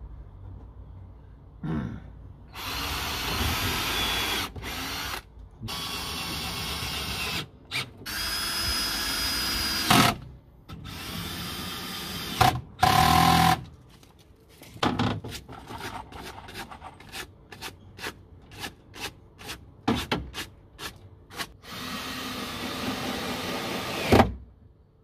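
Cordless drill boring and driving screws into wooden bed slats, run in repeated bursts of one to three seconds. In the middle come a string of short quick clicks and taps. Near the end comes one long run that stops on a sharp knock.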